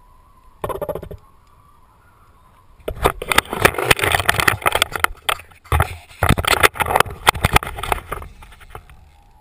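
Handling noise on an action camera's housing: a short burst of rough scraping about a second in, then a long run of dense, irregular knocks and rubbing from about three seconds to eight.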